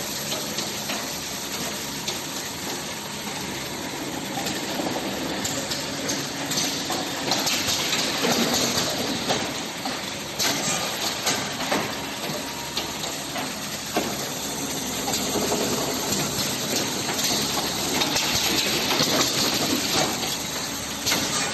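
Industrial A4 paper ream packaging machine running: a steady mechanical clatter with many sharp clicks and knocks.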